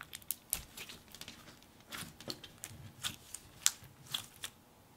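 Hands stretching and squeezing a thick metallic glue slime (Elmer's Gue), giving soft, irregular sticky clicks and crackles.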